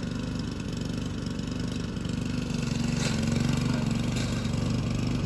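Small engine of a grass-cutting mower running steadily, growing a little louder about halfway through.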